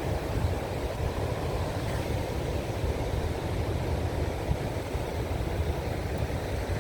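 Strong sea wind buffeting the microphone over the steady wash of ocean surf.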